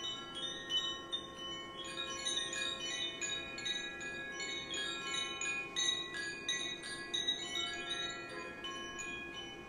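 Koshi wind chime tinkling, many overlapping bright ringing notes struck irregularly, over the steady hum of a crystal quartz singing bowl. The chiming thins out and the sound dies down near the end.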